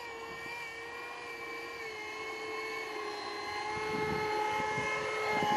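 64 mm electric ducted fan of a foam RC F-22 Raptor model jet giving a steady whine as it flies in slow and low on a landing approach, its nozzle vectored for a short landing. It grows louder near the end as the model comes close.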